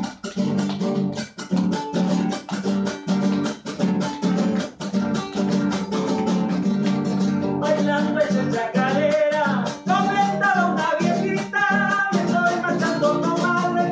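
Acoustic guitar strummed in a steady rhythm, alone at first. A man's singing voice joins in over the strumming about halfway through.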